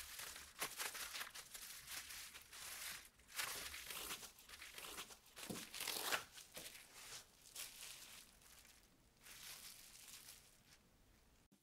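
Faint, irregular crinkling of disposable plastic food gloves and rustling of a bamboo rolling mat as hands press and roll a gimbap, growing quieter near the end.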